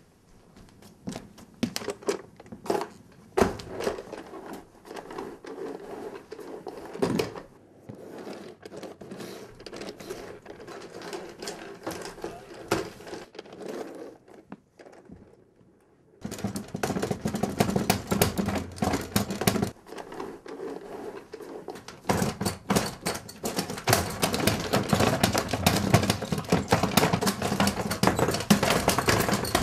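Irregular knocks and clatter, then after a short lull about halfway in an upright vacuum cleaner runs with a dense rattling clatter as it sucks up loose cereal, heavier over the last third.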